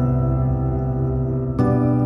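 Soft ambient background music: sustained electric-piano chords ringing on, with a new chord struck about a second and a half in.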